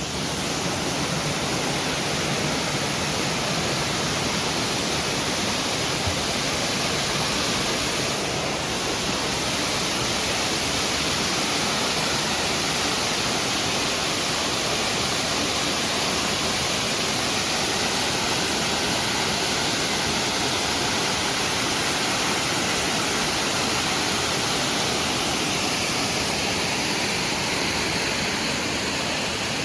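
Steady rush of running water, an even hiss that holds without a break.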